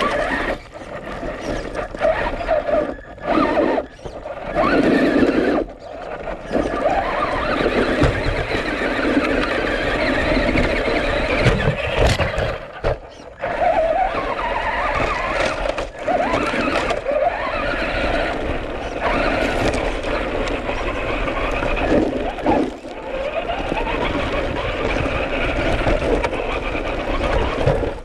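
Traxxas Rustler 4x4 RC truck's electric motor and drivetrain whining close-up, rising and falling in pitch with the throttle, with short lulls. Knocks and rattles come from the chassis as it drives over roots and loose dirt.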